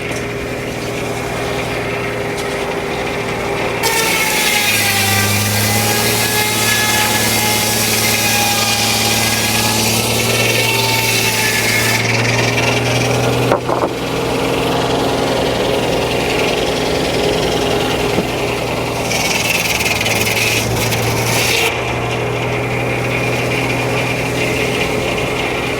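Frick No. 1 sawmill's circular blade sawing through a log, with the mill's power unit running steadily underneath. The cut comes in about four seconds in and runs for about eight seconds, the engine note dipping as the blade takes the load; a second, shorter burst of cutting noise comes near the end.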